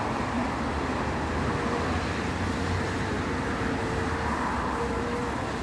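Bulleid West Country class steam locomotive City of Wells approaching slowly on the adjacent track: a steady rumble and hiss, with a faint steady hum through most of it.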